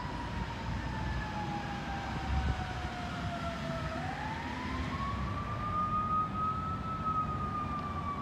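An emergency-vehicle siren wailing slowly over a steady background hum. Its pitch falls for about four seconds, rises again over the next three, then starts to fall once more.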